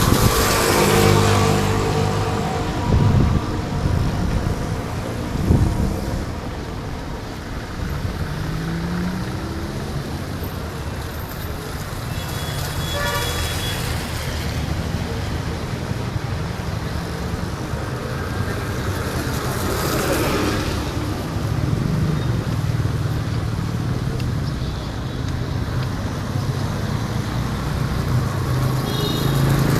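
Street traffic: motor vehicles running and passing over steady road noise, with horns honking a few times.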